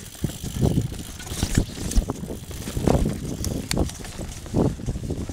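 Mountain bike ridden over a trail of dry fallen leaves: tyres rustling through the leaves, with sharp clicks and knocks from the bike over bumps, and wind buffeting the microphone.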